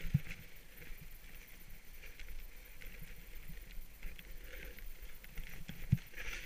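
Skiing or riding over groomed snow heard from a helmet camera: a steady scraping hiss of edges sliding on packed snow, with a sharp low thump just after the start and another near the end.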